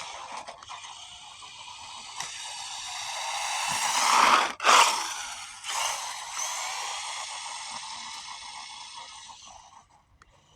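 Brushed electric motor and gear train of a 1/18 scale RC car whining. The whine swells over about four seconds, cuts out for an instant, returns, then fades away.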